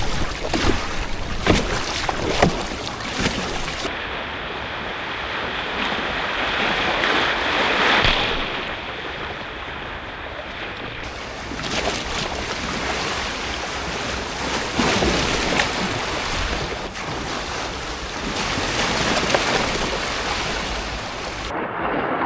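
Rough sea waves washing against a bamboo raft in a storm, with wind. The noise swells and eases in surges, and there are a few sharp splashes in the first few seconds.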